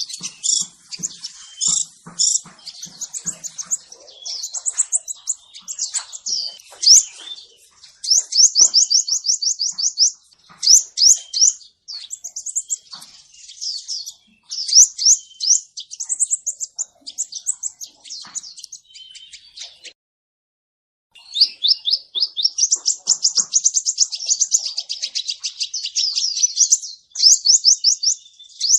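Male crimson sunbird calling: rapid high chirps and fast trills in quick runs, broken once by a short silence about two thirds of the way through.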